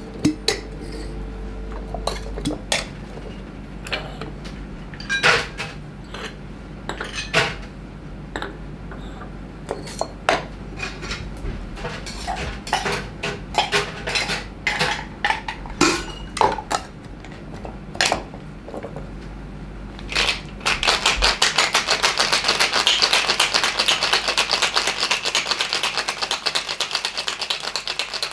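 Bar tools clinking: scattered sharp knocks of metal shaker tins, glassware and bottles being set down and handled. About twenty seconds in, a cocktail shaker with ice starts being shaken in a fast, even rattle.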